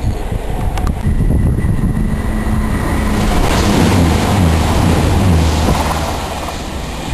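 A Voyager diesel multiple unit passing at speed beneath a bridge: the drone of its underfloor diesel engines and the rush of wheels on rail swell to their loudest as it goes under, about halfway through, then ease off as it runs away.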